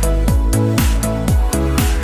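Background electronic dance music with a fast, steady beat, a rising sweep starting near the end.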